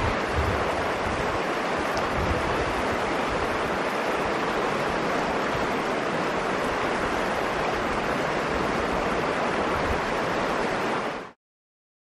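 Mountain river running over rocks, a steady even rush of water that stops abruptly near the end.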